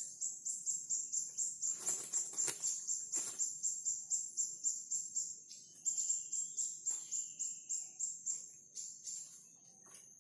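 High-pitched insect call pulsing evenly at about four chirps a second, fading near the end, with a few soft knocks or rustles in between.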